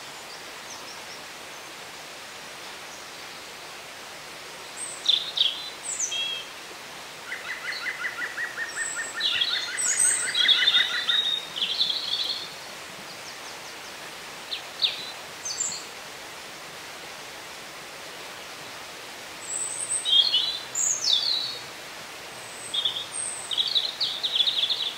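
Woodland birds singing in short, high phrases over a steady background hiss, with one bird giving a long, even trill of rapid notes from about seven to eleven seconds in. Further bursts of song come around fifteen, twenty and twenty-four seconds in.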